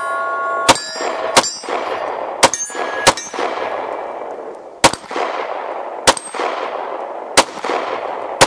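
CZ P10C 9mm pistol firing about eight shots of 124-grain Remington ammunition, spaced irregularly, roughly a second or so apart; each shot trails off in a long echo.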